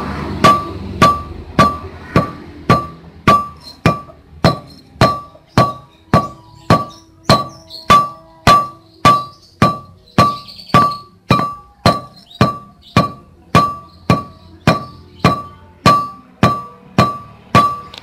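Pestle pounding a seed feed mix in a metal mortar, just under two strikes a second. Each blow is a sharp clank that leaves the mortar ringing with one clear tone.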